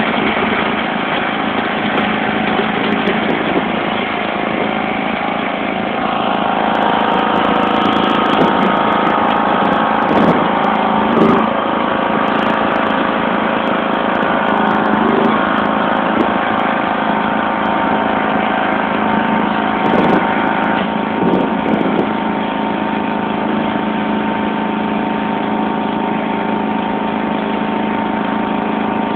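John Deere LX176 lawn tractor's 14 hp OHV engine running steadily while the tractor pushes snow with a front plow blade, heard from the driver's seat. A few short knocks come through in the middle.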